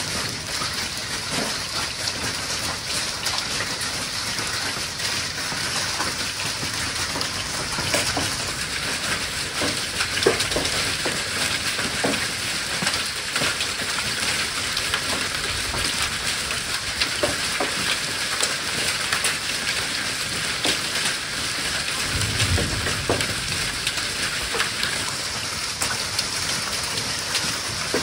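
Hailstones and rain pelting rooftop solar panels and the roof: a dense, continuous patter with many sharper individual clicks of stones striking. A brief low rumble comes late on.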